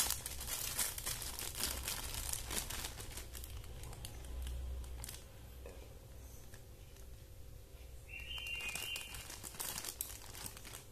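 Clear plastic zip-lock bag crinkling as it is opened and handled, the cable and connector pins inside shifting. The rustling comes in irregular bunches, busiest in the first few seconds and again near the end.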